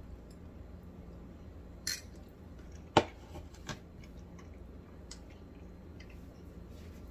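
A metal fork clinking against a plate: a light tap about two seconds in, a sharp clink about three seconds in, and a smaller one just after.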